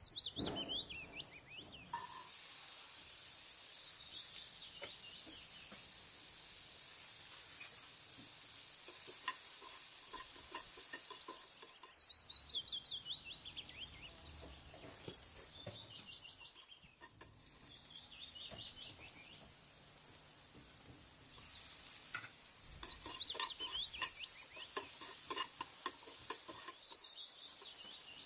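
Black chickpeas frying and sizzling in oil in a frying pan, stirred now and then with a spatula scraping and knocking against the pan. A bird calls several times, each call a quick run of high notes falling in pitch.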